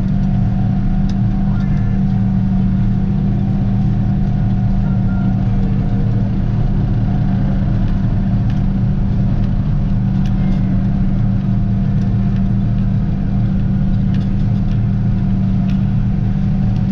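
John Deere tractor's diesel engine running steadily under load, driving a New Holland pull-type forage harvester, heard from inside the tractor cab as a constant deep hum with machinery noise over it.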